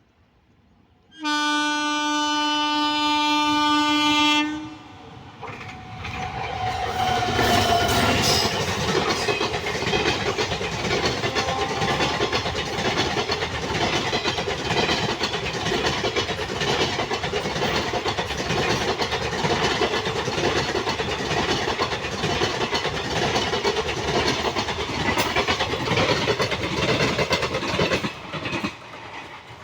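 An Indian Railways train horn sounds one long steady blast for about three seconds. Then a train passes at speed, running loud with wheels clacking over the rail joints, and drops away near the end.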